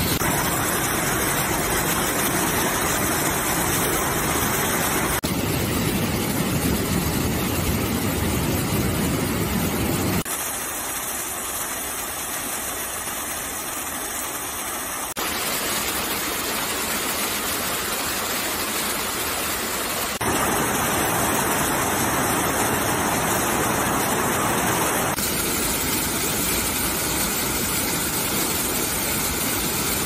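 Waterfalls rushing steadily, in short clips that change about every five seconds. For the first ten seconds it is the deep, heavy rumble of Ohiopyle Falls; after that come the lighter, thinner splash of smaller woodland cascades such as Sugar Run Falls.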